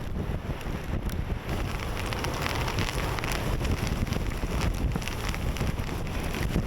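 Blizzard wind buffeting the microphone with a low rumble, over a hiss of blowing snow, with scattered small ticks across it.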